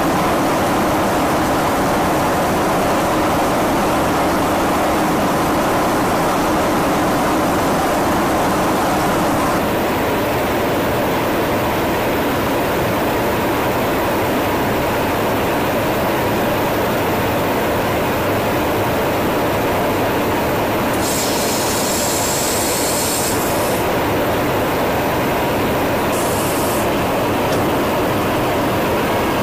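Steady cabin noise of a KC-135 Stratotanker in flight: jet engine and airflow noise with a faint steady hum. The sound shifts slightly about ten seconds in, and a brief high hiss comes in twice near the end.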